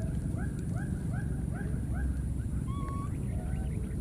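Baby monkey crying: a quick series of short cries, about four a second, then a few longer, wavering cries near the end.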